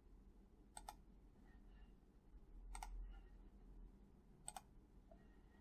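Near silence with three faint computer clicks spread across a few seconds, each a quick double click, over a low hum.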